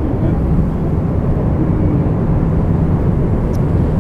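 Jet airliner cabin noise: a steady low drone.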